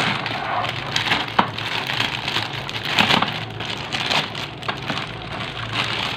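Clear plastic packing bag crinkling as it is pulled off a grey plastic printer part: a continuous crackle with sharper crackles here and there.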